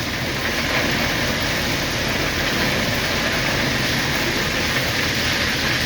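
Diesel locomotive running steadily, with an even, unchanging rumble and hiss and no sudden knocks.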